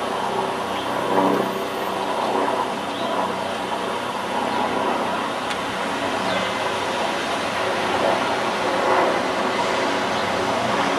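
Steady city traffic noise, with engines running and no single event standing out.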